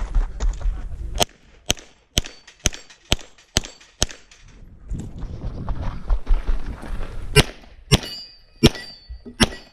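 Pistol shots fired in a stage run: seven evenly spaced shots about half a second apart, a pause of about three seconds, then more shots. A steady ringing tone hangs after the later shots.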